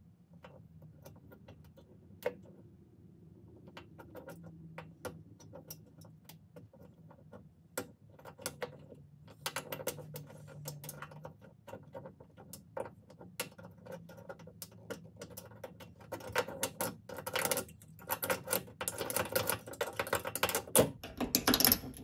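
Lock picking on an Edwards fire alarm panel lock: a pick clicking and scraping against the pins under tension, sparse light ticks at first, then rapid clicking from about halfway. Near the end a louder rattle as the lock gives and turns open.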